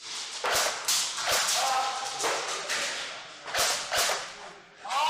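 Airsoft gunfire: about six sharp, whip-like cracks at uneven intervals.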